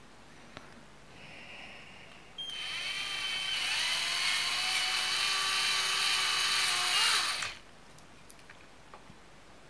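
Cordless drill with a tapered bit widening a hole in a plastic antenna housing. The motor starts about two and a half seconds in, rising briefly in pitch to a steady whine, runs for about five seconds and cuts off suddenly.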